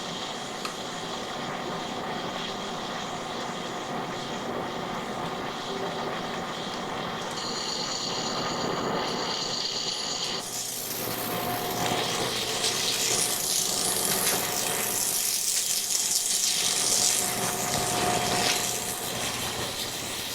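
Steady machine-shop running noise with a high whine for a few seconds, then a loud steady hiss starting about halfway through.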